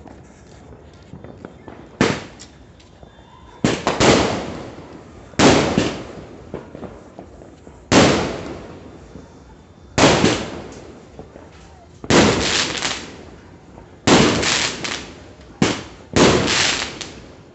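A large-caliber 16-shot aerial firework cake (Pegasus Fireworks 'Golden Time') firing. After about two seconds, sharp bangs come about every two seconds, some in quick pairs, and each fades away slowly.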